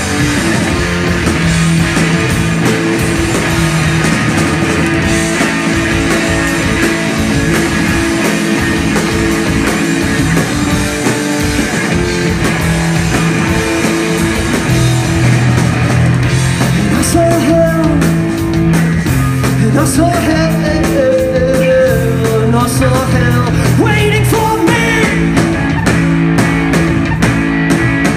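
A live rock trio playing loud: electric bass, drum kit with crashing cymbals, and electric guitar, with sliding notes in the second half.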